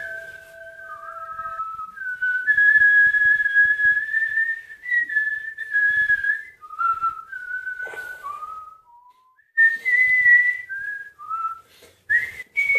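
A person whistling a slow tune in long held notes that step and slide between pitches, with short breaks between phrases. A lower steady tone sounds under the first note and stops about a second and a half in.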